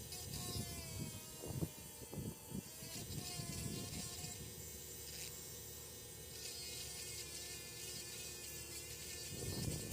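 Small Dremel rotary tool running at high speed with a buzzing whine, its pitch wavering as the bit grinds into a die-cast toy truck's base. A few low knocks from handling the model come in the first three seconds.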